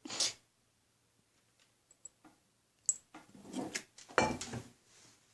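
Scattered handling noises: a few soft scrapes and knocks, a sharp click about three seconds in, and a louder thump a little after four seconds.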